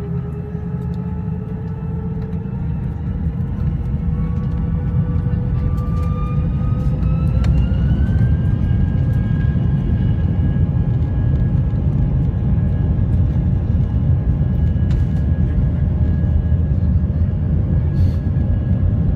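Airliner jet engines spooling up for takeoff, heard inside the cabin: a whine rises in pitch for about eight seconds and then holds steady over a loud rumble that builds as the aircraft accelerates down the runway.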